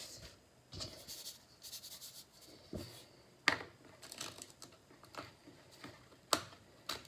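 Seasoning being shaken from a shaker container onto raw chicken thighs, in short hissy spurts, with two sharp clicks of the container being handled.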